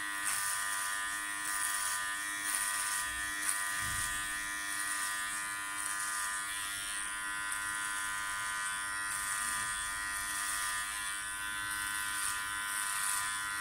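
Powertec TR 1700 cordless hair clipper running with a steady buzz as it is pushed up through thick hair, the hiss of the cutting swelling and easing with each stroke. A brief low thump about four seconds in.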